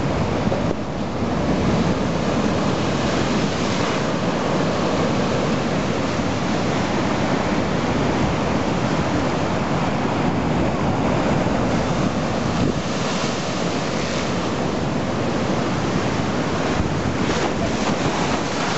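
Storm waves at a spring high tide surging and breaking over a harbour wall and steps, a steady heavy rush of surf, with wind gusting on the microphone.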